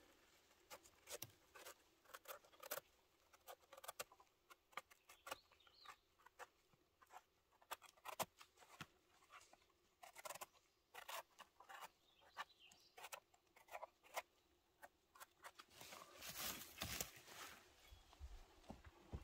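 Faint, irregular crackling and scraping of forest soil and litter being dug around a king bolete mushroom, with short clicks and rustles coming in uneven clusters.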